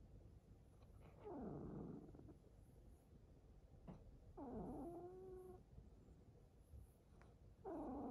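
Ragdoll cat giving three short, low meows: a falling one about a second in, then two longer ones, halfway through and near the end, that rise and then hold a steady pitch.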